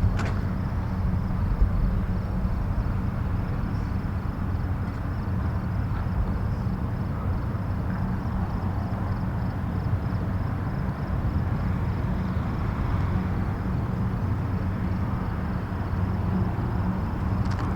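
Distant highway traffic in the morning: a steady, low rumble of vehicles passing far off, with no single car standing out.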